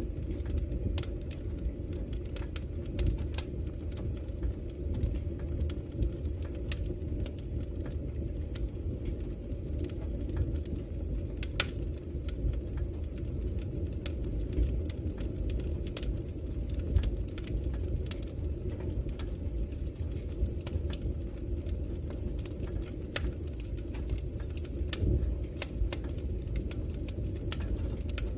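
Campfire burning: a steady low rumble of flames with scattered sharp crackles and pops from the wood.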